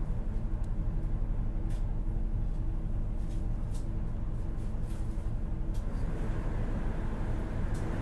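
Hino Blue Ribbon City city bus (KL-HU2PREA) heard from inside the cabin: its six-cylinder diesel engine running with a steady low hum. A few faint ticks and rattles come now and then. About six seconds in, the steady engine tone fades into a broader rumble.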